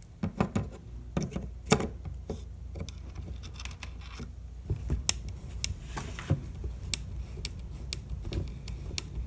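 Irregular clicks and taps of a plastic servo case being handled and pressed into a plastic RC truck chassis's servo mount. A small hex driver is then fitted to its mounting screws, with light rubbing between the knocks.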